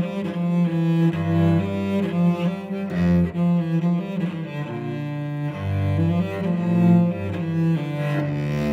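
Solo cello bowed, playing a run of sustained notes that move up and down in pitch, each held from a fraction of a second to about a second.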